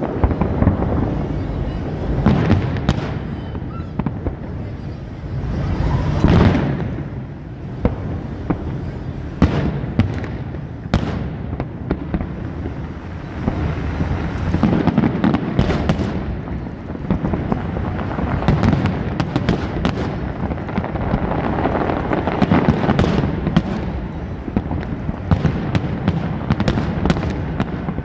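Fireworks going off one after another: many sharp bangs and crackles over a continuous low rumble of explosions.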